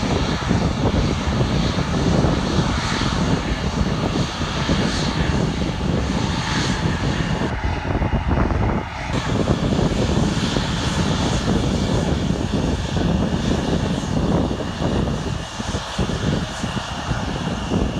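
Jet aircraft engines: a regional jet running at taxi power close by, over the steady rumble of an airliner on its takeoff roll across the airfield.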